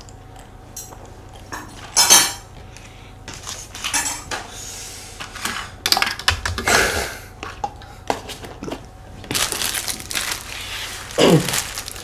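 Metal forks and spoons clinking as they are gathered up from a wooden table, with knocks of plastic cups being moved and the rustle and crumple of paper and plastic cake wrappings.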